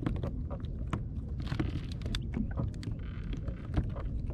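Water lapping against a plastic sit-on-top kayak hull, with many light clicks and small knocks over a steady low rumble.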